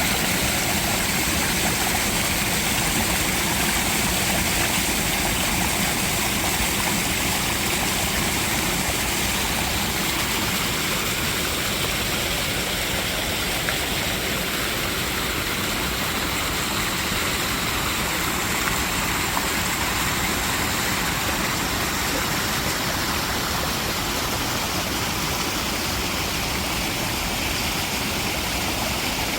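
Mountain valley stream rushing over rocks, a steady, unbroken flow of water.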